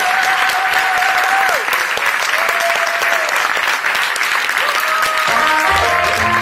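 Audience applauding throughout, over music: a long held note that bends off at its end in the first second and a half, then about five seconds in a melody of short stepped notes begins over a bass line.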